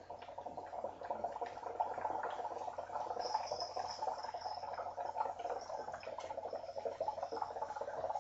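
Water bubbling steadily in a homemade plastic-bottle percolator bong as smoke is drawn through the perc during a long inhale.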